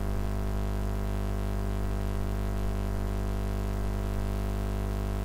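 Steady electrical hum: a constant, even buzz with many overtones and no change in pitch or level.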